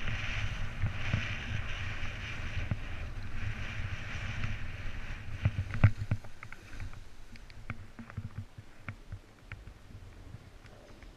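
A snowboard sliding and scraping over hard-packed snow, a steady hiss over a low rumble of wind on the camera microphone. About six seconds in it dies down as the board slows, leaving scattered short clicks and crunches of snow.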